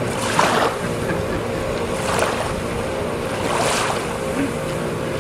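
Water splashing as a kayaker hand-paddles a sea kayak, one arm sweeping through the water: three splashes about a second and a half apart.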